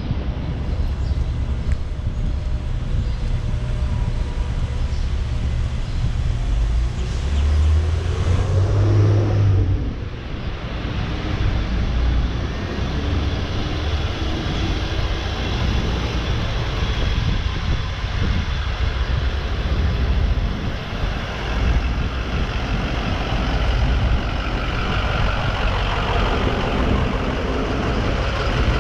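Street traffic: motor vehicles running with a steady low engine rumble, one engine rising and falling in pitch about eight to ten seconds in.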